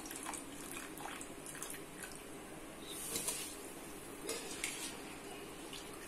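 Spiced water at a rolling boil in a large pot, bubbling with many small irregular pops and splutters.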